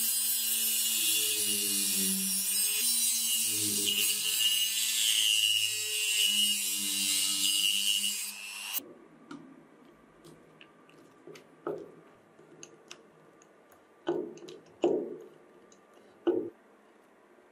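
Abrasive cut-off disc on a mandrel in a power drill grinding a slot into a steel screw head: a loud steady hiss over a lower hum that shifts in pitch, cutting off suddenly about nine seconds in. Then a few separate knocks and creaks as a flat screwdriver turns the screw out of the wood.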